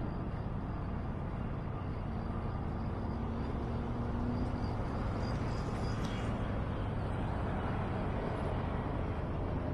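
City street traffic: a steady wash of passing cars, with a faint engine hum for a couple of seconds in the middle.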